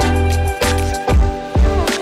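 Background music with a steady, regular beat and sustained pitched notes over it.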